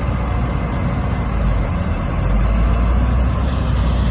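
Diesel engine of harvest machinery running steadily, a low rumble that grows louder about two seconds in.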